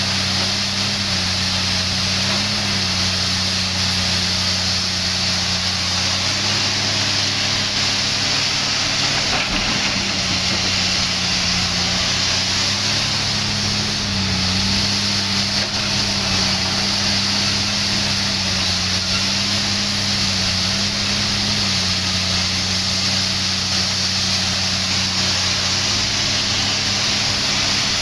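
Komatsu PC300 hydraulic excavator's diesel engine running steadily under working load while it digs and swings. The engine note dips and lifts slightly several times as the hydraulics take up load.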